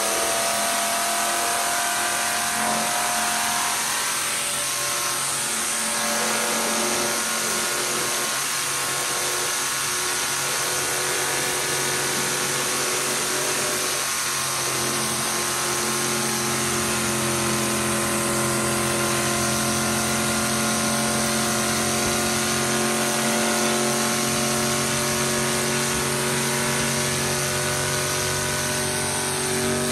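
Car engine held at high, steady revs for a long burnout, with a steady hiss over the engine note.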